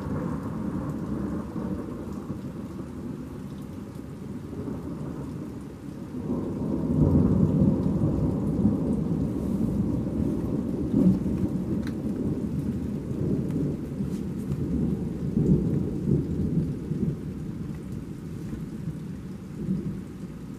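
Heavy rain pouring down outside an open window. A long, low roll of thunder builds about six seconds in and rumbles on for several seconds before easing.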